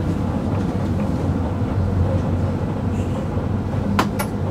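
Tram running along its rails: a steady low rumbling hum from wheels and drive. Two sharp clicks come close together near the end.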